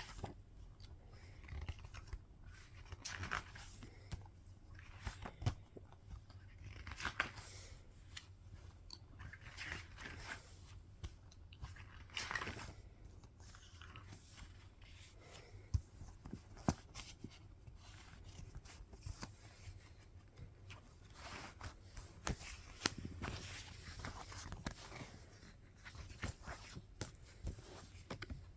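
Irregular rustling, crinkling and light clicks of paper and plastic packaging being handled while a K-pop photobook album is unboxed, over a faint steady low hum.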